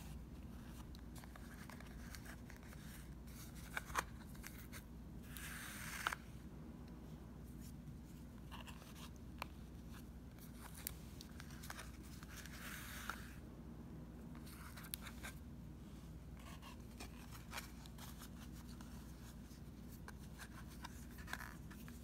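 Faint handling sounds of yarn being wound around a CD: scattered light clicks and taps of fingers on the plastic disc, with two longer rubbing swishes of yarn drawn across it, about five seconds in and again about twelve seconds in.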